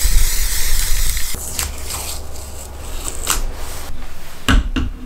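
Aerosol spray paint can hissing steadily for about a second and a half, then stopping abruptly. A few light clicks and taps follow, and two sharper knocks near the end as tools are handled on the work surface.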